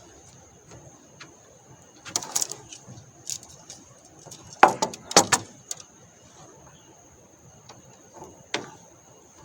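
Sharp clicks and clattering knocks of objects being handled, in groups about two seconds in, in the middle (the loudest), and near the end. Throughout, a steady high-pitched insect chirring runs underneath.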